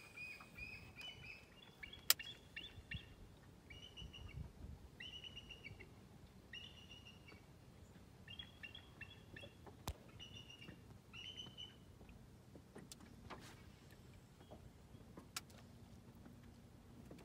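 A bird calling in short phrases of a few notes, repeated about once a second for roughly the first eleven seconds. A sharp knock about two seconds in and another near ten seconds.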